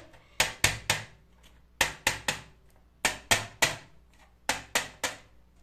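Batter-filled muffin moulds tapped down against the baking tray: sharp knocks in four quick sets of three, a normal step to settle the batter and knock out air bubbles before baking.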